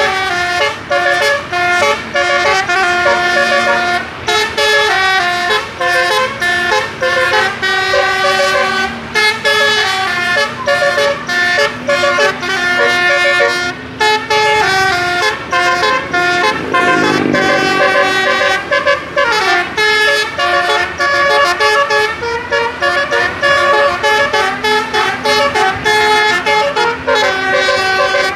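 Bus 'telolet' horn, a set of multi-tone air horns, playing a fast melody of changing notes without a break. There are a couple of sliding swoops in pitch about two-thirds of the way through.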